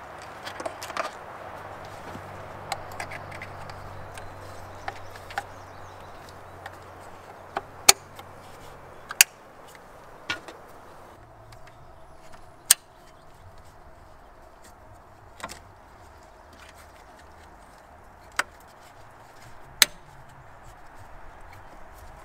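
Hands working in an engine bay: a dozen or so sharp, scattered clicks and snaps of hoses and plastic fittings being handled and pushed on, over faint steady background noise.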